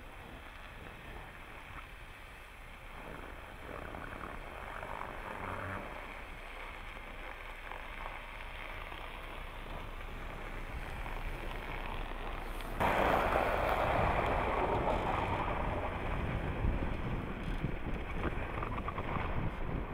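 A Jeep Patriot driving slowly through snow, its tyres working through the snow with the engine running under wind noise on the microphone. About thirteen seconds in the sound jumps abruptly to a louder rush as a Ram Power Wagon pickup drives through snow.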